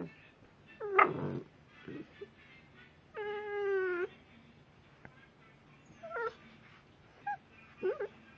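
Blue Staffordshire bull terrier puppy making strange high whining, yelping noises. There is a short sharp call about a second in, a longer drawn-out whine about three seconds in, then several short squeaky calls near the end.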